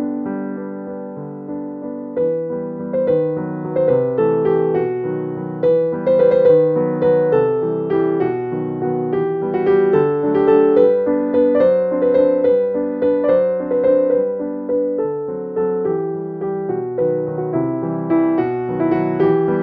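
Background piano music: a gentle melody of struck notes that ring and fade.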